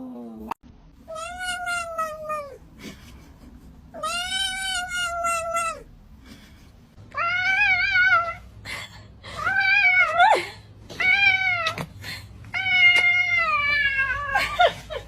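A cat meowing six times in long, drawn-out calls, each lasting a second or more, some with a wavering pitch.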